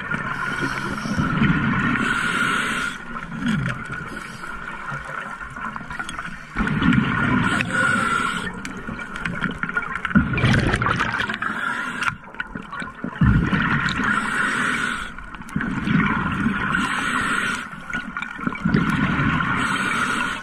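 Scuba regulator breathing underwater: a burst of gurgling exhaust bubbles every few seconds, with quieter inhales between.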